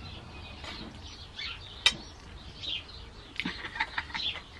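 Small birds chirping in the background. There is a sharp click about two seconds in and a quick run of clicks near the end.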